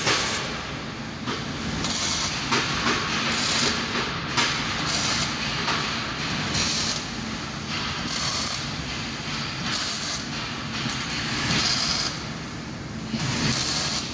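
Electric arc welding: the arc hissing and crackling steadily while a bead is laid, the level swelling and dipping as the torch moves.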